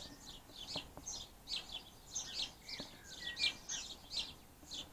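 Small birds chirping in a dense, continuous run of short high chirps, several a second, with a couple of brief lower whistled notes near the middle.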